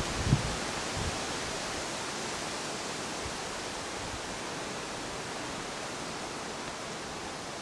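Steady, even rushing hiss of outdoor ambience, with a couple of short low thumps near the start.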